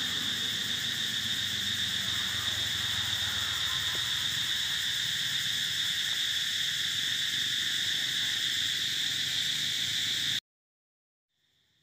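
Steady, loud high-pitched drone of an insect chorus in the forest. It cuts off abruptly about ten seconds in, and a much fainter buzz returns just before the end.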